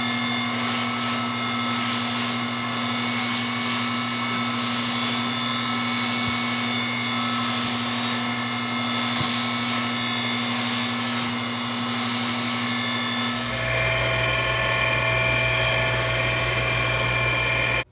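Surface grinder running steadily, its abrasive wheel grinding steel ball nut shim spacers. The steady tone of the machine changes about thirteen seconds in, taking on a lower hum.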